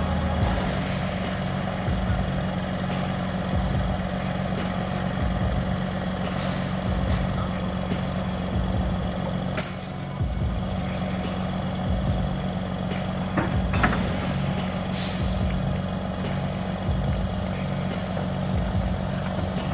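A heavy vehicle's engine running steadily with a low hum, with a few sharp clicks or knocks along the way.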